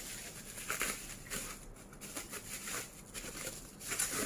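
Cardboard box being handled and opened by hand: a series of short, irregular scrapes and rustles, the loudest near the end.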